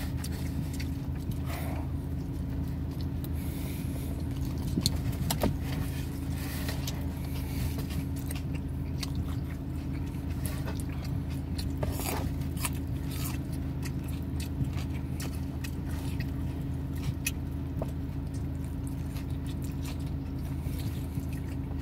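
Mouth sounds of chewing and biting into a slice of pizza: scattered soft crunches and wet clicks. Under them is a steady low hum inside the car.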